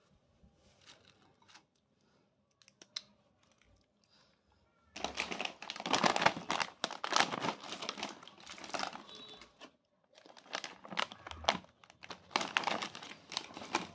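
A plastic potato-chip bag crinkling loudly as hands grip and squeeze it, in two spells starting about five seconds in, after a few faint clicks.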